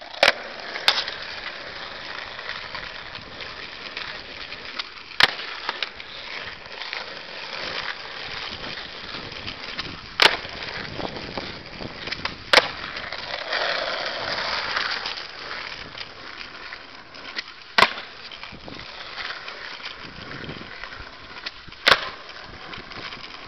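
Skateboard wheels rolling on rough asphalt, broken every few seconds by sharp wooden cracks of the tail popping and the deck landing as the rider does tre flips (360 flips) in a row.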